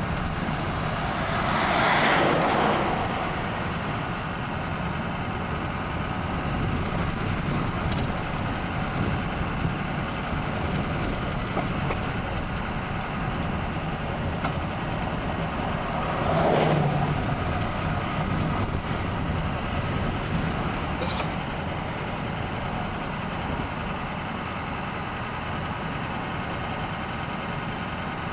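Steady rolling rumble and rush of movement alongside loaded coal hopper cars. It swells louder twice, about 2 seconds in and again about 16 seconds in.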